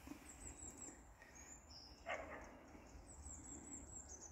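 Faint woodland birdsong: thin, high chirps in quick series and short whistled notes. One brief, louder, lower-pitched call comes about two seconds in, over a low background rumble.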